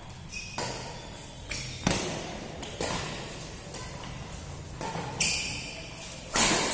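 Badminton rackets striking a shuttlecock in a doubles rally: about half a dozen sharp hits roughly a second apart, each with a short echo, the loudest hit near the end.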